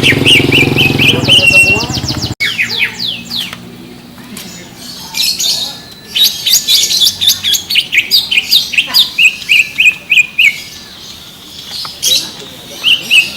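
Cucak ijo (green leafbird) singing: fast bursts of sharp, repeated chirping notes in phrases, with a short break before the song resumes near the end. A low engine hum runs under the first two seconds, then cuts off abruptly.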